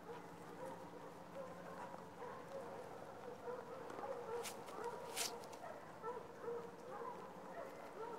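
Faint short animal calls repeating, over a low steady hum, with two brief sharp sounds about four and a half and five seconds in.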